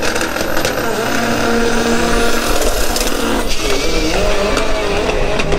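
Drag racing cars at full throttle accelerating down the strip, with a few sharp pops near the start and a brief dip in the engine note about three and a half seconds in.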